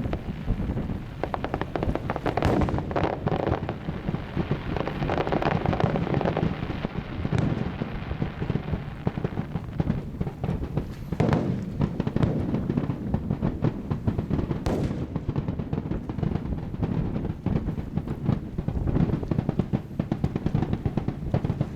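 Aerial fireworks bursting in quick succession: a dense, continuous crackle broken by a few louder bangs.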